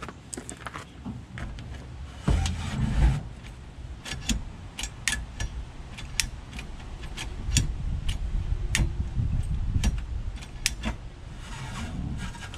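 Diesel engine of a 1993 International 4900 truck running steadily while its PTO-driven hydraulic pump is tried through the newly connected cable control for the dump hoist. Sharp metallic ticks come and go throughout, and the rumble swells louder for about a second a couple of seconds in.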